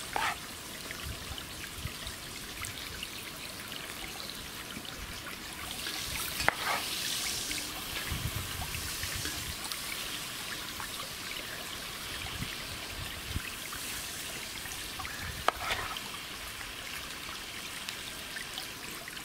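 A knife slicing cherry tomatoes on a wooden cutting board, with a few sharp taps of the blade on the board, over a steady hiss.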